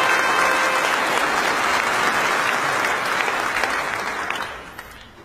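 Large audience applauding, dying away near the end.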